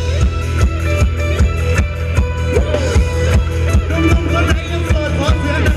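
Loud live Thai ramwong dance-band music with a steady, fast drum beat, heavy bass and a wavering melody on top.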